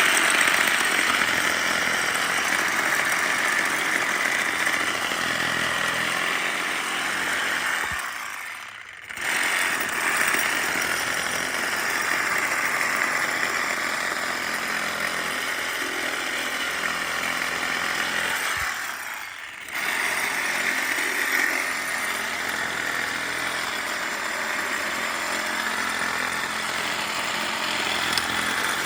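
Cordless DeWalt reciprocating saw with a Diablo pruning blade cutting through tree branches. It runs in three long cuts, stopping briefly at about a third of the way through and again about two-thirds of the way through.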